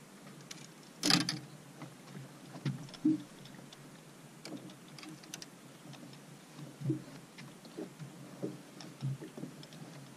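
Scattered knocks and clicks of fishing gear being handled on a bass boat's front deck. There is a sharp, loud knock about a second in and another about three seconds in.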